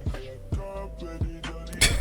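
Background hip hop music with deep, falling bass kicks about every half second under sustained notes, and a louder burst of sharp hits near the end.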